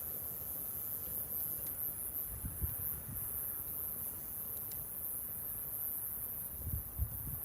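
Wood campfire burning with a few faint crackles, under a steady high chirring of insects. A couple of low thumps come about two and a half seconds in and again near the end.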